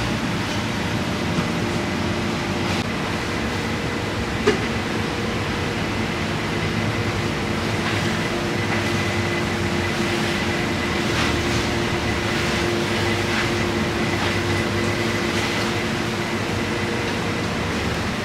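Steady mechanical hum and rushing noise of a commercial kitchen, with a single sharp click about four and a half seconds in.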